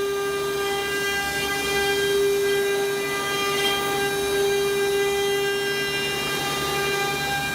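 CNC wood-carving router's spindle running at constant speed, a steady high-pitched whine over a hiss.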